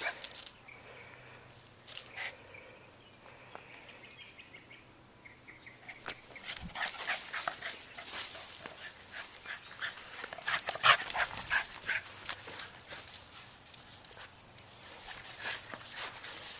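Boston terrier playing with a soft floppy Frisbee. A faint high whine comes in the first few seconds, then from about six seconds in there is a long stretch of rapid scuffling and rustling.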